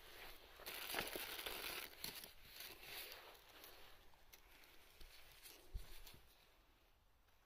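Faint rustling and crinkling of gloved hands handling a soil-caked mushroom, with a few light scrapes and clicks; loudest about a second in, fading toward the end.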